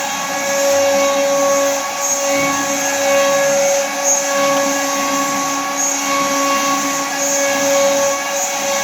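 Large servo-driven CNC router running: a steady high-pitched machine whine with overtones over a rushing noise. The whine dips briefly and comes back every second or two.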